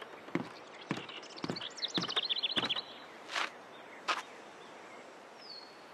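Unhurried footsteps, a little under two a second, that stop about two and a half seconds in, with a small bird twittering in a rapid run of high chirps over the last steps. Two short noisy sounds follow, and a brief falling whistle comes near the end.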